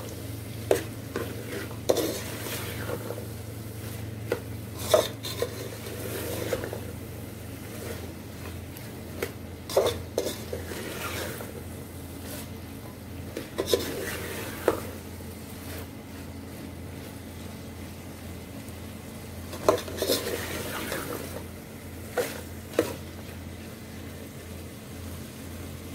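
Metal spoon stirring boiled white chickpeas through a masala in a metal pot, with a sharp clink of spoon on pot every few seconds and a faint sizzle as the chickpeas fry in the spice paste. A steady low hum runs underneath.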